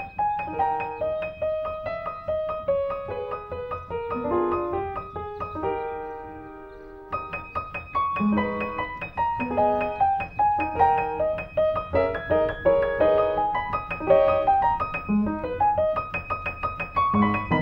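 Background piano music: a quick, flowing run of notes; about five seconds in it settles on a held chord that fades away before the running notes resume about two seconds later.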